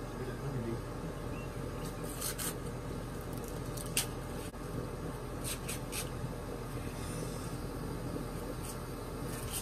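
Ears of sweet corn being shucked by hand: husks tearing and rustling in several short bursts over a steady low hum.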